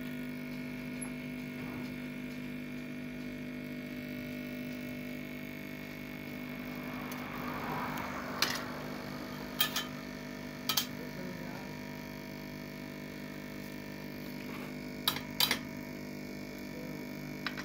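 Steady electrical hum under a few sharp clicks of steel tweezers tapping against the chip and the workbench, several about eight to eleven seconds in and two more near the end.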